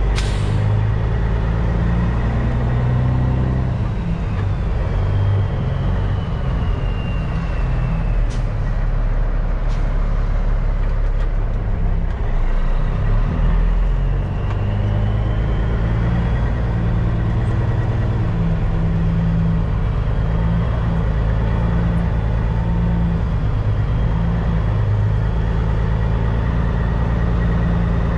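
Caterpillar C15 diesel of a 2006 Peterbilt 379 running at low revs, heard from inside the cab, its note rising and falling with the throttle as the truck creeps through a tight turn. A brief hiss of air comes right at the start, two sharp clicks come about a third of the way in, and a faint whistle glides in pitch.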